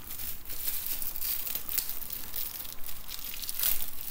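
Clear protective plastic wrap on a new handbag's handle crinkling and crackling irregularly as it is handled.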